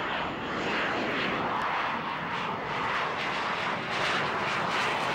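F/A-18 Hornet's twin jet engines at high power as the fighter passes close in a climbing bank. The noise grows louder about a second in and again near the end, where it takes on a crackling edge.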